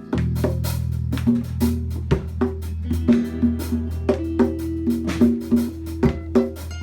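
Background music with a steady drum beat, a held bass line and short repeated pitched notes.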